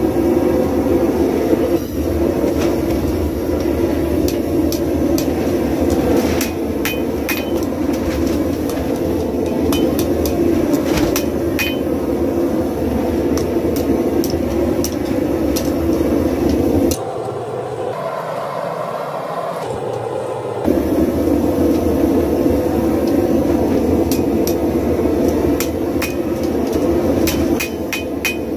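Hand hammer striking red-hot spring steel held in tongs on an anvil, forging a straight razor blade: runs of sharp strikes with pauses between. Underneath, a loud steady rushing noise that drops away for a few seconds past the middle.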